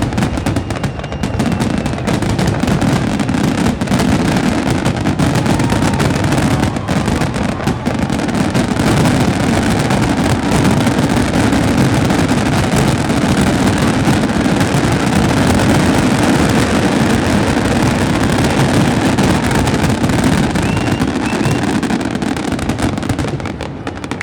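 Dense, unbroken barrage of fireworks shells bursting in rapid succession during a fireworks finale, the booms running together into one continuous rumble. It eases slightly near the end.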